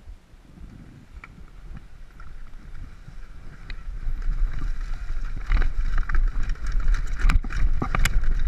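Mountain bike riding downhill through tall grass, with tyres brushing through the vegetation and wind rumbling on the microphone, getting louder as it picks up speed about halfway through. Sharp rattles and clacks from the bike over rough ground near the end.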